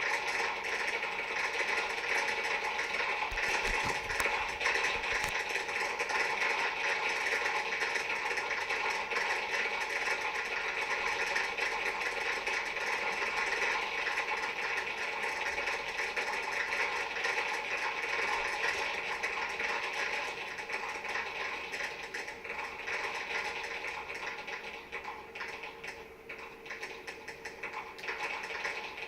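A burning firework crackling and fizzing steadily in a dense stream of fast pops, with a few louder cracks about four seconds in, dying down near the end as it burns out.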